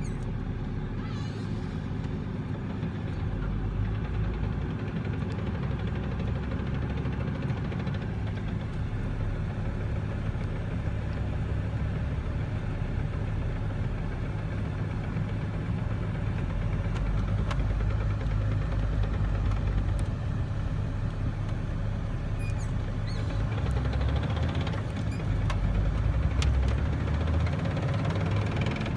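1996 Dodge Cummins turbo-diesel truck driving in the lower gears, the diesel running steadily and getting louder as it pulls, with a tapping knock from the NV4500 manual transmission that the owner takes for a failing bearing.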